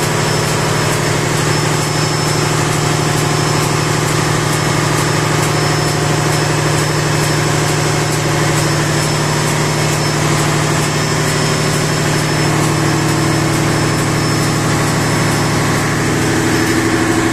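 Steady, loud drone of running auxiliary machinery in a ship's engine room, while the main engine itself stands stopped with its crankcase doors open.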